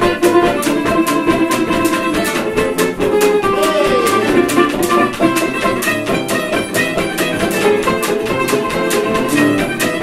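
Jug band playing a ragtime tune live: acoustic string instruments strummed in a steady, even rhythm under a sustained lead melody line, which slides in pitch about three and a half seconds in.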